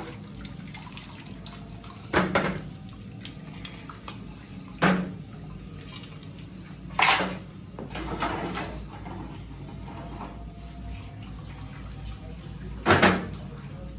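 A long metal ladle clanking against a large cooking pot and a steel tray as boiled head and trotter pieces are scooped out of simmering broth, with broth splashing and dripping. There are about five sharp clanks, a double one near the end.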